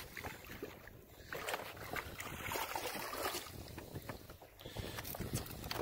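Wind rushing over the microphone and small waves lapping against a fishing boat, an uneven noise with a few faint knocks.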